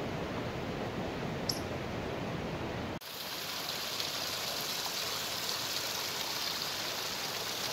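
A small mountain stream trickling and splashing over mossy rocks, a bright steady hiss that cuts in abruptly about three seconds in. Before it there is a lower, steady rushing noise.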